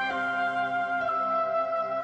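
Slow background music: a flute-like wind melody holding long notes over sustained chords, moving to a new note about every second.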